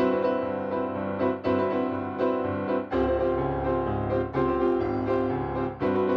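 Piano music: a steady run of short notes, joined about three seconds in by a lower bass part.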